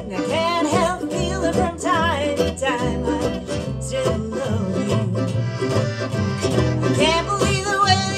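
Live country-bluegrass band playing a tune on fiddle, accordion, acoustic guitar and upright bass.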